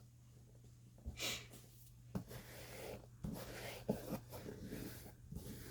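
Paper and craft pieces being handled on a work table: soft rustles and several light taps, over a steady low hum.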